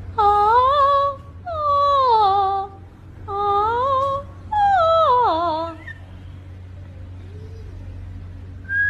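A high voice humming a tune in four short phrases, the last one sliding down in pitch. After a few quieter seconds, a chihuahua starts a high howl right at the end.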